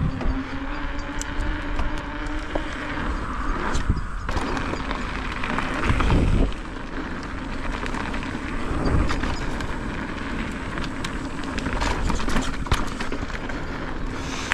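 Santa Cruz Megatower mountain bike being ridden: steady wind noise on the camera microphone with tyre rumble and scattered rattles and knocks from the bike, the wind loudest about six seconds in.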